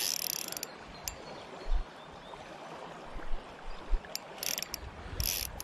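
Spinning reel's drag buzzing in short spells, under a second each, as a hooked carp pulls line off. A river's current runs underneath.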